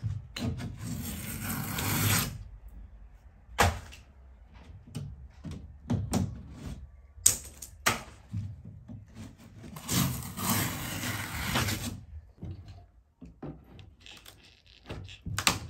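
Water-damaged ceiling board and its paper being torn and pulled away by hand: two long stretches of crackly ripping and crumbling, one near the start and one about ten seconds in, with scattered knocks and clicks between them.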